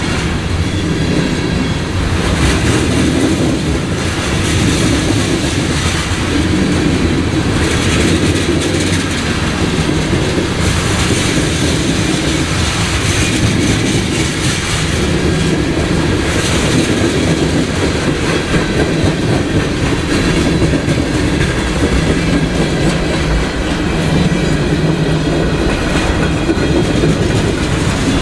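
CSX freight train's cars, including covered hoppers, rolling past at close range, with steady wheel-on-rail noise.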